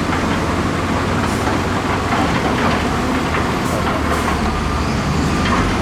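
Heavy diesel construction machinery running steadily, a continuous loud engine rumble.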